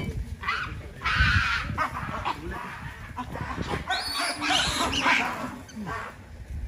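Baboons screaming in harsh, shrill bursts, one about a second in and a louder run of calls around four to five seconds in.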